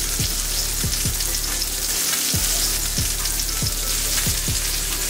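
Salmon fillets searing in olive oil in a frying pan on medium heat, a steady crackling sizzle, with a low, regular beat of background music underneath.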